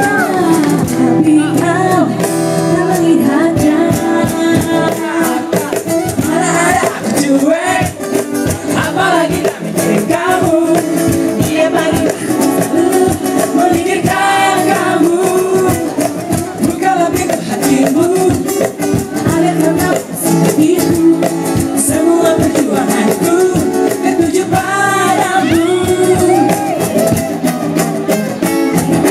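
A girl's voice singing a melodic song with guitar accompaniment.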